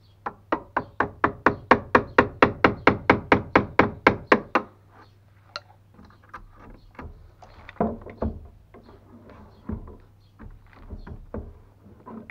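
A steel wood chisel is driven by a quick, even run of sharp ringing blows, about four a second for some four seconds, as it cuts a notch into a wooden boat frame to take a stringer. After that come lighter, irregular knocks and scraping as the notch is worked.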